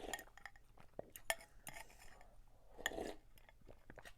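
Quiet, scattered clinks and taps of cutlery against dishes, a few separate knocks over a few seconds.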